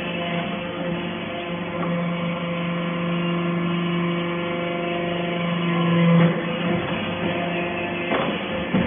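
Hydraulic scrap-metal baler running: a steady machine hum that strengthens for a few seconds, then eases about six seconds in, with a couple of knocks near the end.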